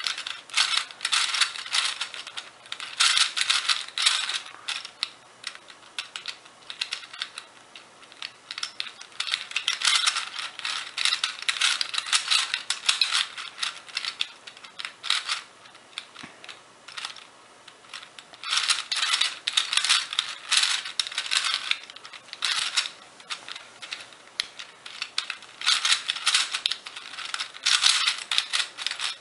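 Plastic twisty puzzle being turned by hand: runs of rapid clicking and rattling turns, broken by a few short pauses.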